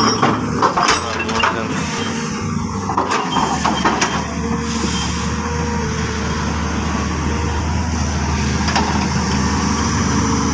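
Volvo crawler excavator's diesel engine running under hydraulic load while its bucket breaks up concrete. Sharp cracks and knocks of concrete being broken come in the first few seconds, then a steady engine drone as the loaded bucket is raised and swung.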